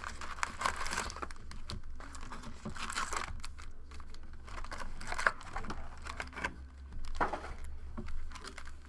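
Trading card pack wrappers crinkling and tearing as packs are opened, with irregular rustles and crisp clicks from the cards being handled, over a low steady hum.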